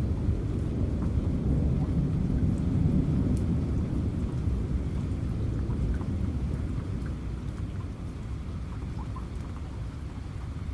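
Steady rain falling, with a long low rumble of thunder that is strongest in the first half and dies away over the last few seconds.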